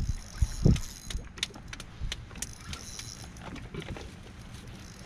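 Wind buffeting the microphone with low rumble, a few dull thumps in the first second, then scattered light clicks and ticks of handling on a small fishing boat.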